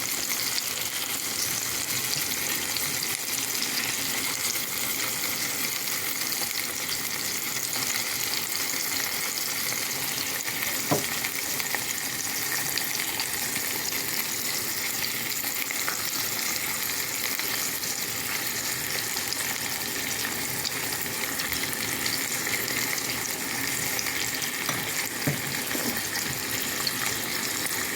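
Kupaty sausages sizzling steadily in a hot frying pan as they are glazed with teriyaki sauce to caramelise, with a light crackle throughout. There is a sharp click about eleven seconds in and a couple of smaller ones near the end.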